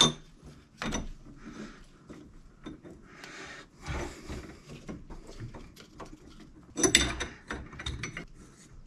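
Brass union nuts of a Zurn Wilkins NR3XL pressure reducing valve being threaded by hand onto the pipe fittings: scattered light metallic clicks and scrapes, with a louder cluster of them about seven seconds in.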